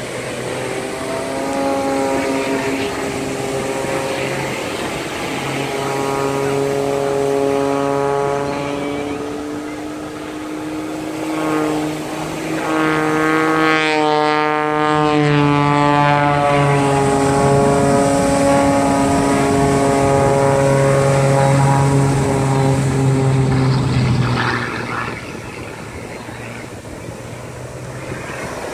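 Piston engine of a single-engine aerobatic propeller plane running loudly overhead through stunts. Its pitch holds steady for stretches, then rises and falls as the plane climbs and dives. It drops away near the end.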